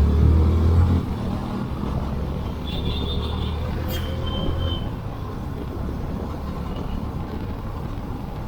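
Motor vehicle on the move over a rough track: a steady engine rumble with road and wind noise. A low hum underneath stops about halfway through.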